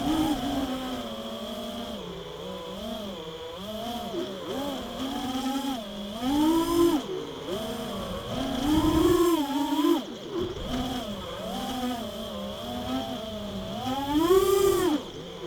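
FPV racing mini quadcopter's motors and propellers buzzing, the pitch rising and falling constantly with throttle. There are louder, higher surges of full throttle about halfway in and again near the end, over a steady high-pitched tone.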